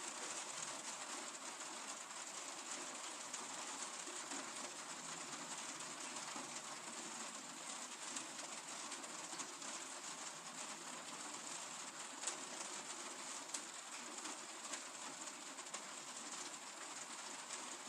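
Steady rain falling, an even hiss with scattered louder drop ticks, a few of them standing out in the second half.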